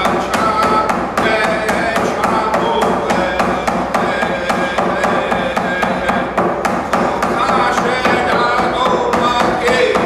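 A man singing an Indigenous song in a steady voice while beating a handheld frame drum with a beater in a fast, even rhythm of about four strikes a second.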